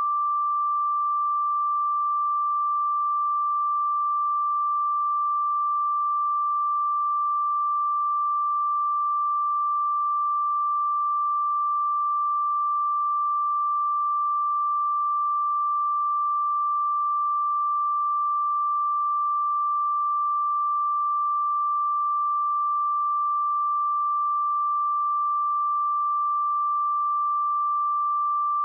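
A steady, unbroken 1176 Hz sine-wave test tone: a single pure pitch at constant loudness.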